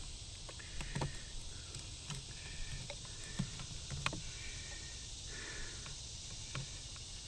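Scattered light clicks and taps as wire spade connectors are handled and pushed onto the terminals of a replacement air-conditioner run capacitor, over a steady low background rumble.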